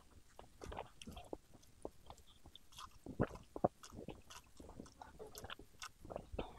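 A person chewing and biting food close to the microphone: soft, irregular wet clicks and crackles, with a couple of louder sharp clicks about three seconds in.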